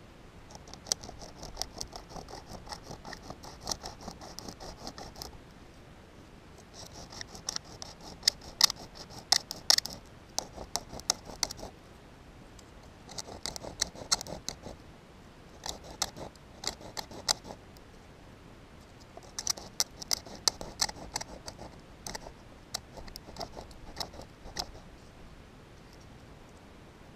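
A stick scraped quickly back and forth against the edge of a rock, in several bouts of a few seconds with short pauses between them.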